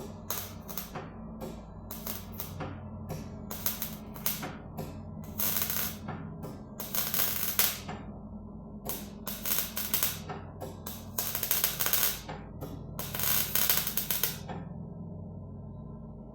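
MIG welder tack-welding new repair metal into car bodywork: a series of crackling bursts, mostly short tacks with a few longer runs, stopping near the end.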